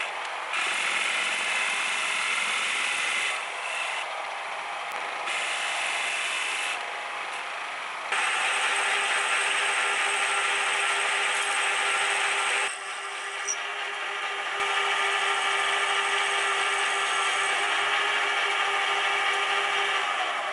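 Metal lathe turning a large metal ring, with a carbide-insert tool cutting its face and bore: a steady scraping noise of the cut over the steady whine of the lathe's motor and gears. The level and character jump abruptly several times, as between separate cuts.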